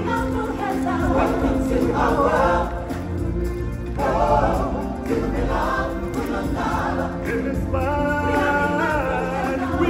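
Group of voices singing in choir style over a steady instrumental backing: live stage-musical song.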